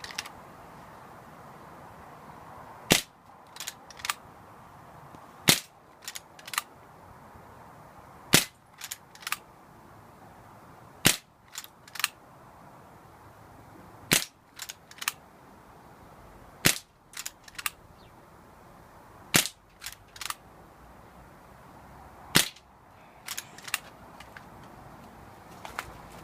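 Winchester rifle firing eight shots at a steady pace, about one every three seconds. Each shot is followed within a second by two quieter sharp clicks.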